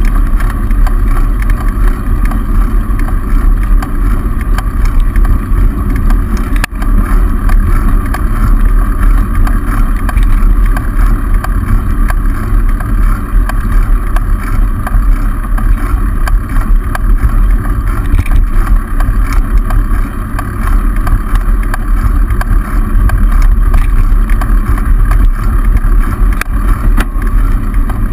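Steady low rumble of wind and road vibration on the microphone of a camera riding on a moving bicycle, with one sharp knock about seven seconds in.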